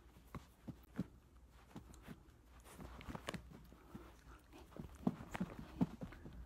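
Dachshund puppy chewing and tugging a plush rope toy on carpet: irregular soft taps, thumps and mouthing noises, busier and louder in the second half.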